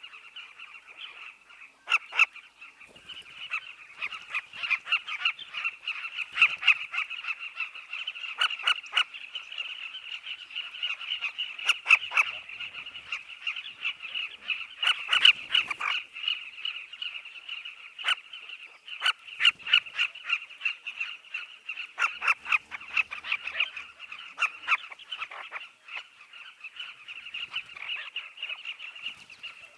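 A nesting colony of southern carmine bee-eaters calling: a dense, continuous chorus of many short, rough chirps overlapping, with louder single calls from birds close by standing out every second or so.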